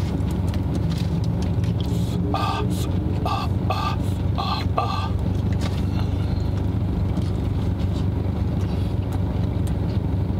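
A car engine idling, heard inside the cabin as a steady low hum. A few short higher-pitched sounds come between about two and five seconds in.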